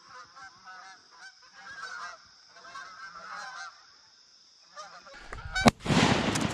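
Canada geese honking as a flock flies over, with calls coming in overlapping bursts and a short lull partway through. Near the end a loud sharp crack cuts in, followed by loud rushing noise.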